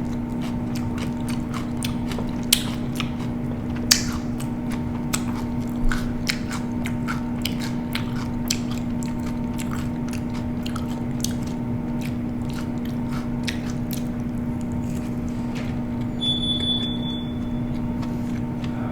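Close-miked chewing and crunching of crunchy food, with many sharp crunches through most of the stretch that thin out after about fourteen seconds, over a steady low hum. A brief high beep sounds near the end.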